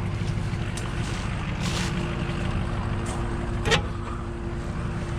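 A vehicle engine idling steadily, with a few short scuffing sounds and one sharp clank about three and a half seconds in.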